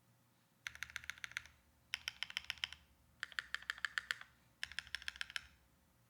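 Modifier keys on a Brutal65 V2 mechanical keyboard with hand-lubed Gateron Smoothies linear switches and GMK keycaps, pressed in four quick runs of about eight to ten strokes each, with short pauses between the runs.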